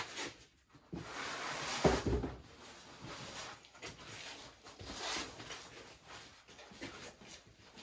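Handling noises in a workshop: scattered knocks, clunks and rustling as engine parts and a sheet of cardboard are moved around an engine hoist, the loudest knock about two seconds in.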